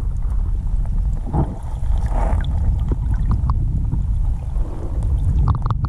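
Muffled rush of creek water heard through a camera held underwater: a steady low rumble with scattered small clicks and knocks.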